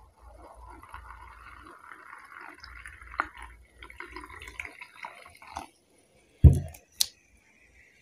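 Coca-Cola being poured over ice in a glass, fizzing and crackling with small drips and clicks. Near the end comes a short, loud low thump, then a sharp click.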